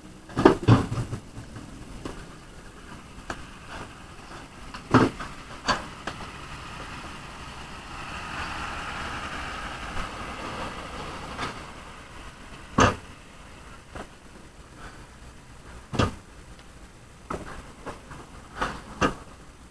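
Dump truck passing slowly on a rough, muddy stone road: a broad rushing noise builds and fades about halfway through, with scattered sharp knocks and clanks, some in quick pairs.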